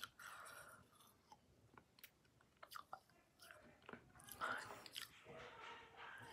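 Faint chewing and mouth clicks of someone working on a mouthful of softened Sweet Tarts and Bottle Caps candy chunks.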